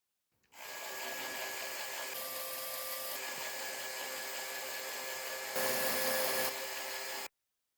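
Small electric motor whirring steadily through gears, as a Lego Technic motor drives the model's moving parts. It gets a little louder for about a second near the end, then stops suddenly.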